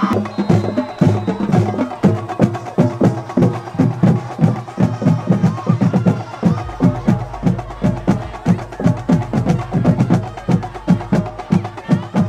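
Music with a fast, steady percussive beat of sharp, knocking hits. A deep bass note comes in about six and a half seconds in.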